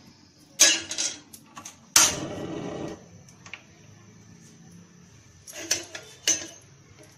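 Metal kitchenware being handled: sharp clinks and knocks of steel utensils and an iron tawa on a gas stove, with a louder clatter about two seconds in that runs on for about a second.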